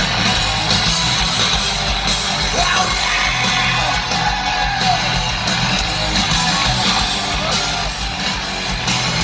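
Live rock band playing loud, with electric guitars and drums under yelled singing.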